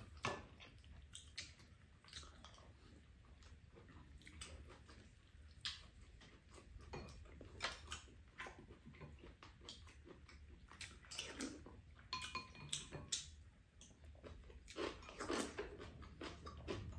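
Quiet eating sounds of two people at a table: chewing a zucchini and chicken stir-fry, sipping soup from wooden spoons, and scattered light clicks of spoons and chopsticks against bowls and a frying pan.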